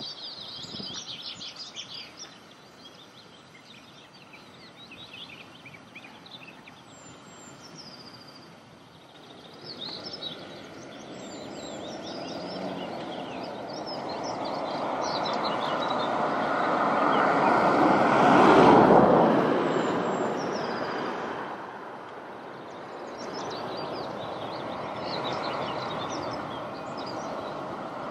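Diesel freight locomotive approaching with its train, engine noise building to a loud peak about two-thirds of the way through, easing off, then rising again near the end. Birds chirp, mostly in the first half.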